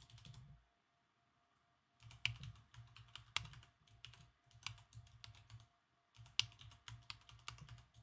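Typing on a computer keyboard: quick runs of keystrokes as a password is entered, a short burst at first, then after a pause two runs of several seconds each with a brief break between them.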